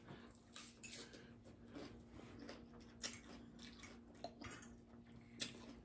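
Faint eating sounds: quiet chewing with scattered small clicks and taps, over a faint steady hum.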